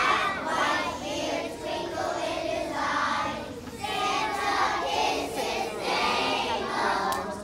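Choir of young children singing together in held phrases, with short breaks between lines.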